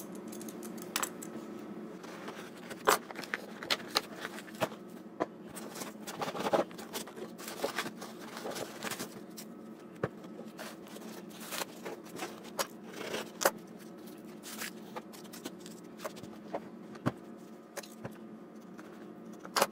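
A cardboard shipping box being opened and foam packing peanuts dug through by hand: irregular scrapes, rustles, and sharp clicks and knocks throughout, over a low steady hum.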